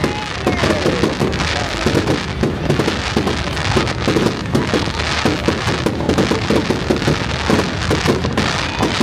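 Fireworks display: a rapid, continuous string of bangs and crackles from many aerial shells bursting.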